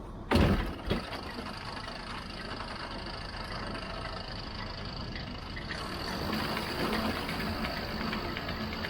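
Tractor engine running steadily with mechanical rattle and a thin high whine, likely while pulling the round baler. A short loud thump comes just after the start.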